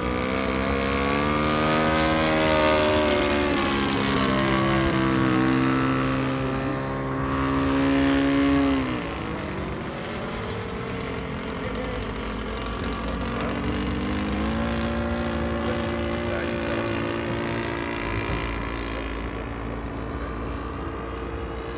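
Engine and propeller of a 1:5 scale SAI KZ II radio-controlled model aeroplane, droning steadily in flight. The pitch climbs in the first couple of seconds, drops sharply about nine seconds in, and rises again around fourteen seconds in.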